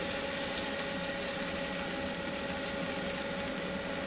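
Chicken frying in a small pan on a canister gas camp stove: a steady sizzling hiss, with a steady mechanical hum underneath.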